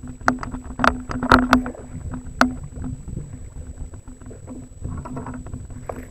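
Sharp knocks and clicks of gear against a fishing kayak's hull while a fish is played on rod and reel, several in the first two and a half seconds, then quieter. A steady low hum runs underneath.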